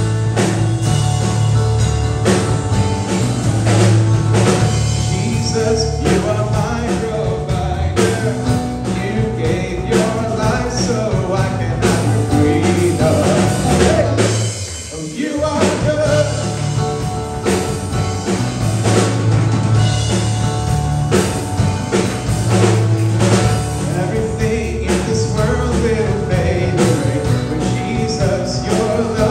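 Praise and worship song played by a band with drums, with singing. The music drops back briefly about halfway through, then carries on.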